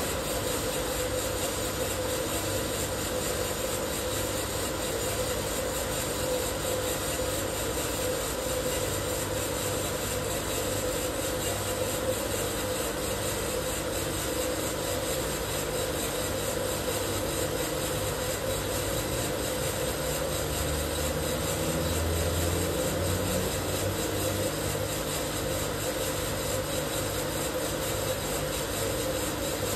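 Probat Probatone P12 Series 2 coffee roaster running during a roast: the drum turning with beans tumbling inside, and its fans and burner making a steady hum and rush with a few constant tones. A brief deeper swell comes about two-thirds of the way through.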